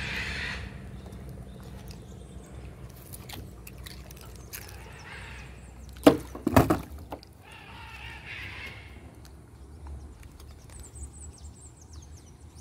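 A small hooked traíra being brought in and landed: soft splashing and handling noise, with two sharp knocks about six seconds in that are the loudest sounds.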